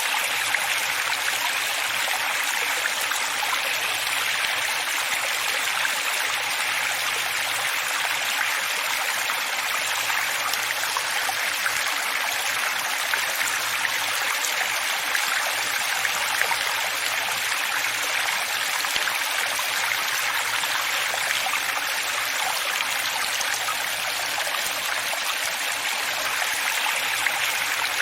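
Running water flowing steadily: an even, bright rush with little deep rumble and no change throughout.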